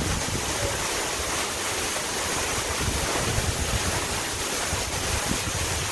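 Steady rush of a mountain waterfall, with wind buffeting the microphone in uneven low gusts.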